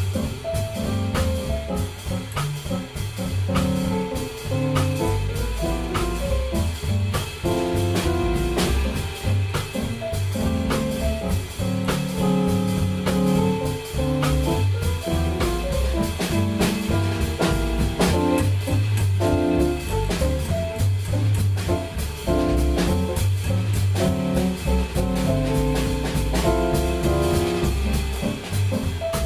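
Live jazz piano trio playing: digital stage piano chords and lines over a double bass line and a drum kit keeping a steady beat on the cymbals.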